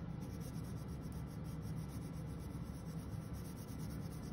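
Crayon rubbing steadily on a paper worksheet as a picture is coloured in.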